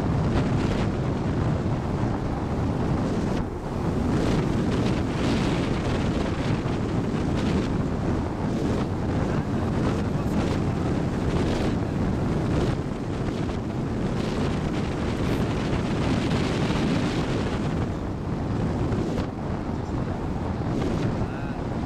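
Steady rush of wind buffeting the microphone of a camera mounted on a hang glider's wing in flight.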